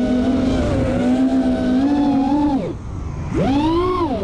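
FPV racing-style drone's electric motors and propellers whining at a steady pitch, then the pitch drops sharply about two and a half seconds in, swells back up and falls again near the end as the throttle is cut and punched while it manoeuvres.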